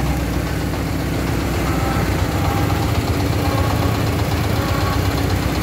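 Homemade three-wheeled công nông farm truck's single-cylinder diesel engine chugging steadily as it drives slowly with a load of bricks.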